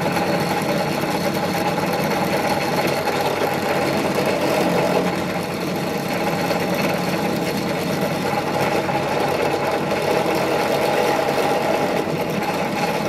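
Bench drill press running steadily, its small twist bit boring eye holes into a spalted-birch wooden hedgehog.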